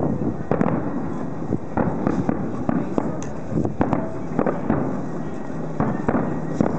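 Starmine fireworks barrage: aerial shells bursting in quick irregular succession, two or three booms a second, overlapping and echoing.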